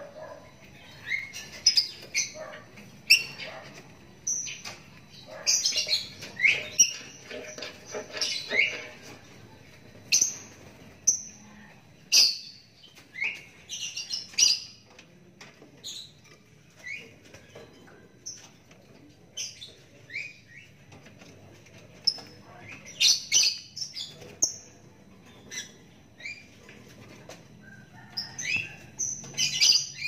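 Young lovebird chirping in many short, high calls at irregular intervals, some sliding up or down, with a few sharp clicks in between.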